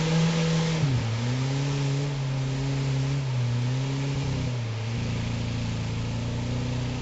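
Off-road 4x4 engine working under load as the truck ploughs through deep muddy water. The engine note drops about a second in, picks up again, then settles lower around four to five seconds in, getting slightly quieter as the truck moves off. Water splashing runs under it.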